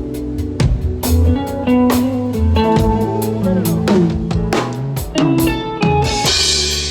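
Live band playing an instrumental passage: electric guitar lines over bass and drum kit, with a cymbal swell near the end.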